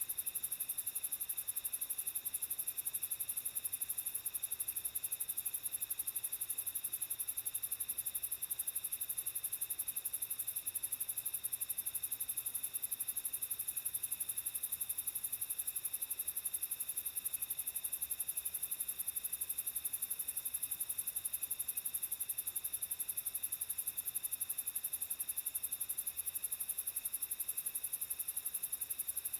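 Night chorus of crickets: a steady, high-pitched, fast-pulsing trill that carries on unchanged throughout.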